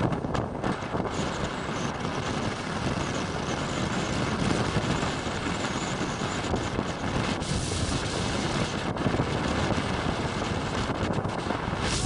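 Strong wind blowing straight across the microphone: a loud, continuous rush of noise, heaviest in the low end, with no let-up.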